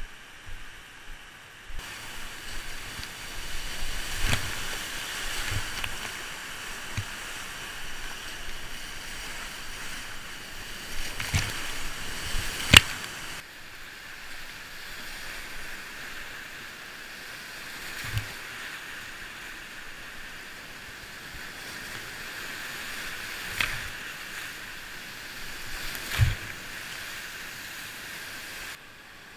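Steady rush of the Bhote Koshi's whitewater rapids, heard from a GoPro mounted on a kayak, with a handful of sharp knocks and splashes scattered through it. The roar jumps in level a couple of times where the footage cuts between rapids, and the first couple of seconds are much quieter.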